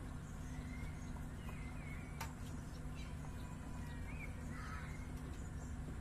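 Faint bird calls, a few short chirps that bend up and down in pitch, over a steady low hum, with one sharp click about two seconds in.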